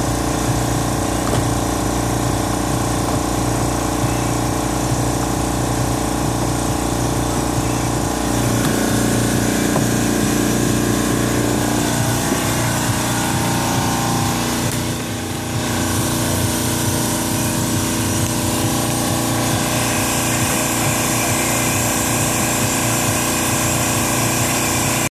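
A motor running steadily: a loud mechanical drone with several held tones, shifting in pitch around the middle and dipping briefly about fifteen seconds in.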